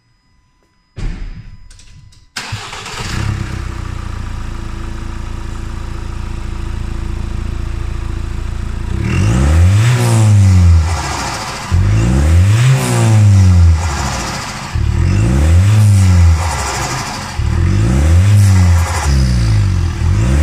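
Ford Transit Custom Sport's turbo-diesel engine, breathing through an ITG open induction kit, starting about a second in and idling steadily. From about halfway it is blipped about five times, each rev rising and falling, with loud intake induction noise.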